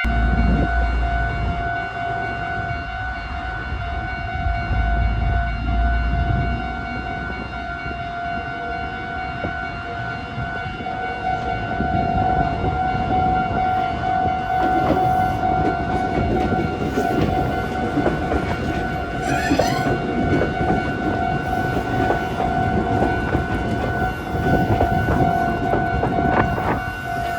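A train passing, with rumbling and clattering, under a steady high tone that holds throughout. A short rising whistle-like glide comes about two-thirds of the way through.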